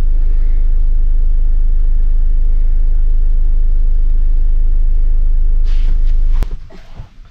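Gas hob burner roaring steadily under a stovetop toast iron, a loud, even, low rumble that cuts off abruptly about six and a half seconds in.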